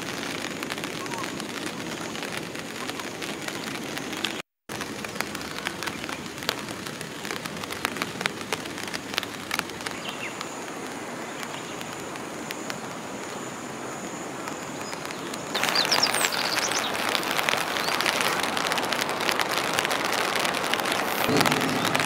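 Rain falling, with many separate drops ticking sharply close by. It turns louder and heavier about two thirds of the way through.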